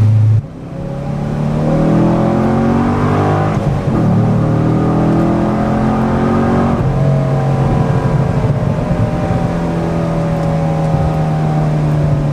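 Corvette V8 through an SLP Loudmouth II aftermarket exhaust, accelerating hard. The engine note drops off about half a second in, then rises through one gear, shifts up about three and a half seconds in and rises again. A little before the end it settles into a steady, slowly falling drone.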